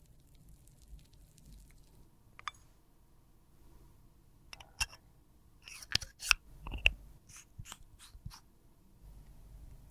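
Sharp clicks and taps of gloved hands handling a gold metal lipstick tube. A few scattered clicks come first, then a cluster of loud clicks a little past the middle, followed by a quick run of about five lighter ticks.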